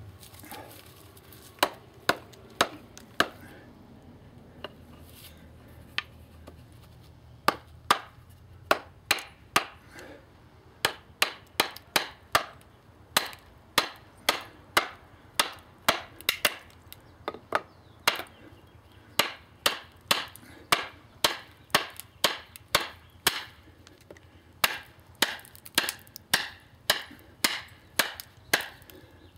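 Wooden baton repeatedly striking the spine of a Tops Fieldcraft knife, driving the blade down to split a short juniper log. Sharp knocks, mostly one or two a second, with a pause a few seconds in and quicker strikes near the end.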